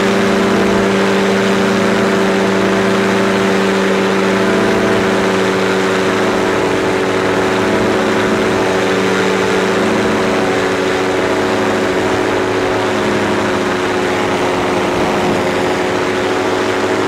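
Powered parachute's engine and propeller running steadily at flight power, a constant loud drone with only small shifts in pitch.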